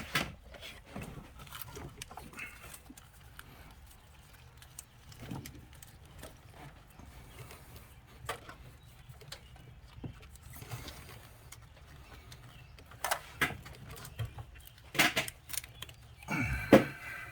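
Scattered knocks and clicks of metal engine parts being handled and set in place, with a run of louder clanks in the last few seconds.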